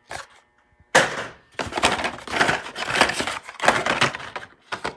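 Hot Wheels blister-pack cards and the cardboard display case rustling and crackling as cards are handled and pulled from the case, loud and dense from about a second in until near the end.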